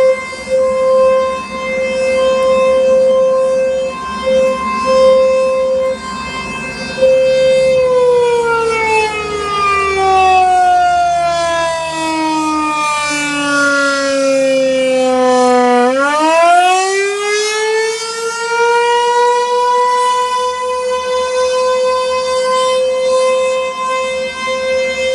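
American Signal T-128 rotating outdoor warning siren sounding a steady tone that pulses slightly as it turns. About eight seconds in, its pitch falls slowly for about eight seconds. It then climbs quickly back to full pitch and holds steady again.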